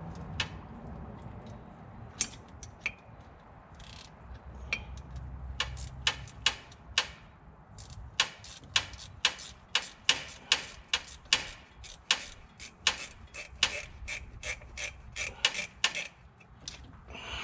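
Ratchet wrench clicking as it is worked on the truck engine's oil cooler fittings. The sharp clicks come unevenly at first, then settle into a steady run of about two to three a second.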